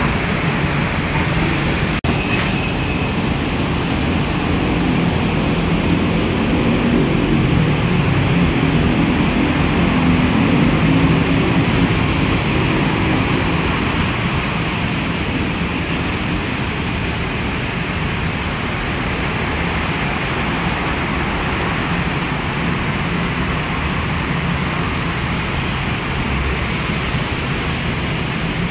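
MRT Yellow Line Innovia monorail train running on its rubber tyres, a steady rumble that swells in the middle and then eases off. A single click about two seconds in.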